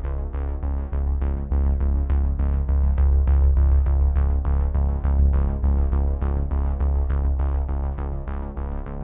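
Background music: a quick, even run of repeated notes over a sustained deep bass, growing louder through the middle.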